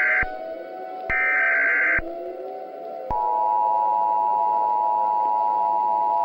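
Emergency Alert System broadcast tones: a burst of the harsh digital SAME header data ends just after the start and another runs for about a second starting about a second in. About three seconds in, the steady two-tone EAS attention signal begins and holds, with faint rising tones underneath.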